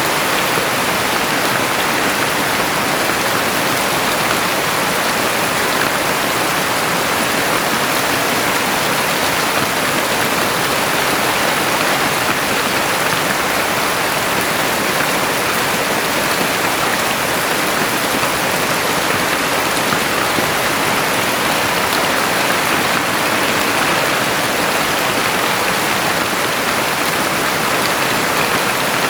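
Heavy rain falling steadily, a dense even hiss with no distinct drops or thunder.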